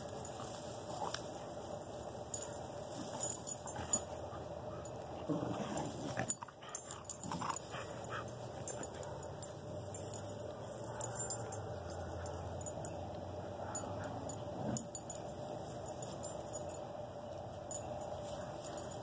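A Beagle and a young Staffordshire bull terrier puppy at play, with a few short, scattered dog vocalizations.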